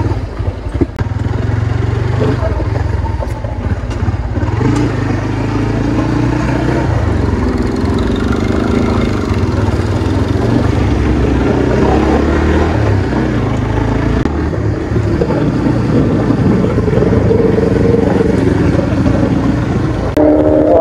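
Honda RS150 motorcycle's single-cylinder engine pulling away from a stop and riding on, its note rising and falling with the throttle, over a continuous low rumble of wind.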